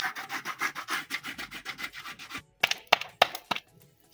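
Quick, even scraping strokes, about six a second, that stop about two and a half seconds in, followed by a few sharp taps.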